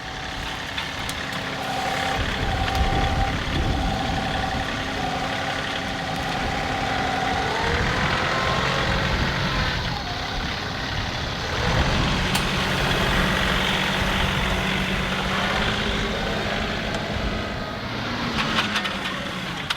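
John Deere 2038R compact tractor's three-cylinder diesel engine running as it works a grapple moving firewood rounds. A higher whine sits over the engine and rises in pitch about eight seconds in, and the engine note shifts near twelve seconds.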